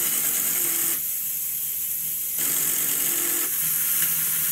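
LEGO Technic motors and gear trains of an automated LEGO loom whirring as the loom runs. The motors work in spells: the whir eases off about a second in and picks up again a second and a half later.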